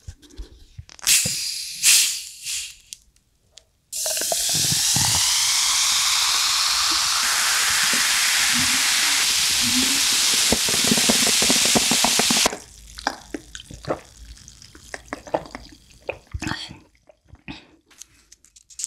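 A plastic Coca-Cola bottle twisted open, with short sharp hisses of escaping gas about a second in. Then cola is poured into a glass as a loud, steady fizzing pour lasting about eight seconds, which drops to a fainter crackle of bubbles in the glass. Near the end a few light clicks of a pizza server lifting a slice.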